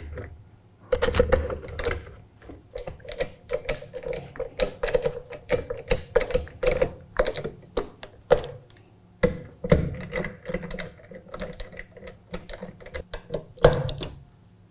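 Ratcheting screwdriver clicking rapidly as rifle action screws are tightened down through the bottom metal, toward about 60 inch-pounds. The clicking comes in two long runs with a short pause about eight seconds in, and ends with a louder knock near the end.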